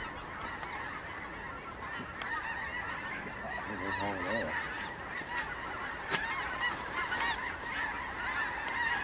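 A flock of geese honking, many overlapping calls at once, with one lower, closer call about four seconds in.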